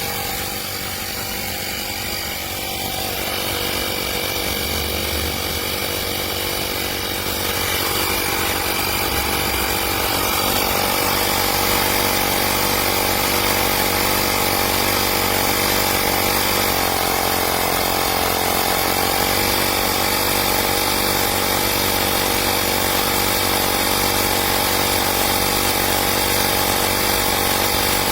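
AstroAI 12V portable electric tyre inflator running with a steady mechanical buzz, growing louder a few seconds in, with a brief slight dip in pitch later on.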